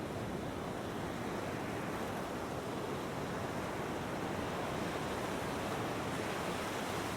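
Big ocean waves breaking: a steady wash of surf noise that swells slightly later on.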